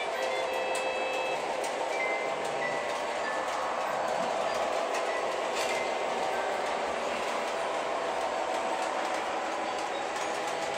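O-scale model train running around a loop of track: a steady rumble of wheels and motor, with a few short, high ringing notes over it.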